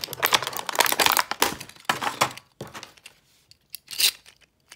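Thin clear plastic packaging bag crinkling and crackling as a plastic Beyblade launcher is pulled out of it, for about two and a half seconds. Then a few scattered clicks, with a sharper click about four seconds in, as the hard plastic launcher is handled.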